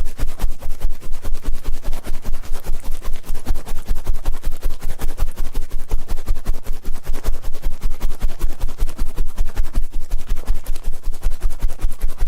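Ear-cleaning ASMR sounds: rapid, even scratching and rubbing strokes at an ear-shaped microphone, several strokes a second, with a low rumble from each contact.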